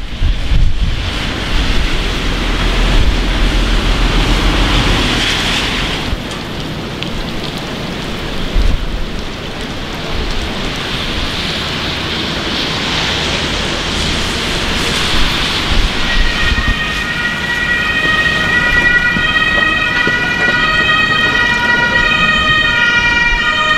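Steady heavy rain, with wind buffeting the microphone for the first quarter or so. About two-thirds of the way through, an emergency vehicle's two-tone siren rises in, alternating between two pitches over the rain.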